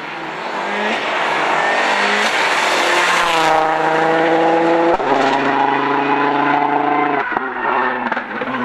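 Mitsubishi Lancer WRC05 rally car's turbocharged four-cylinder engine accelerating past close by. The pitch climbs, then breaks for gear changes about five and seven seconds in, and the car eases away near the end.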